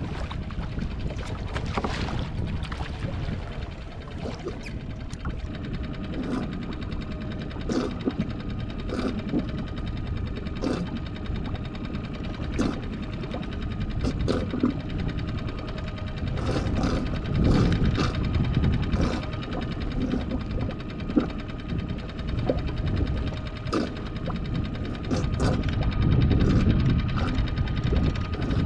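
Wind rumbling on the microphone over water noise around a small fishing skiff, with scattered sharp clicks and knocks of rod-and-reel gear about once a second while a fish is reeled in. The rumble swells twice, in the middle and near the end.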